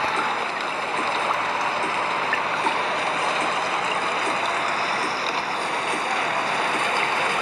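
Steady hiss of heavy rain, even and unbroken.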